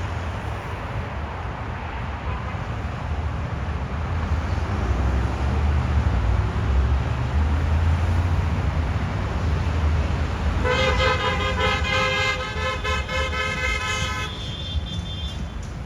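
Motorcycle engines rumbling low and steady, with a vehicle horn blaring for about three and a half seconds past the middle, a held chord of several pitches.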